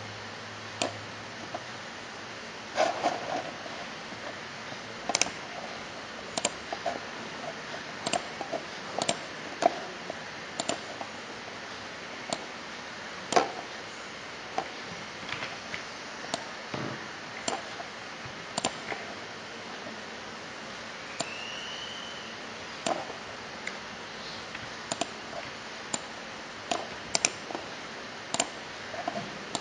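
Computer mouse clicking at irregular intervals, a few of the clicks sharper and louder than the rest, over a steady background hiss.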